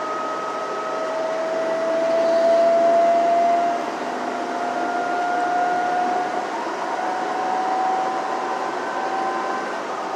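City bus under way, heard from inside the passenger cabin: a steady drivetrain whine that rises slowly in pitch over continuous road and engine noise, growing louder about two seconds in and dropping back about four seconds in.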